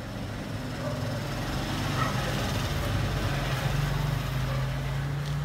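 An engine running steadily, a low hum that grows louder and steadier in the second half.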